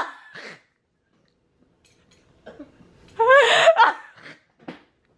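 A woman's high-pitched laughter: a near-silent pause, then about three seconds in a loud burst of squealing laughs with a wavering pitch, trailing off in a few short breaths.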